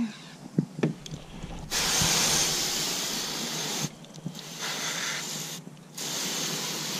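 Water spraying from a garden hose's pistol-grip nozzle onto a raw chicken: a hiss in three bursts, each starting and stopping abruptly as the trigger is squeezed and let go, the middle one quieter. A few light knocks come before the first burst.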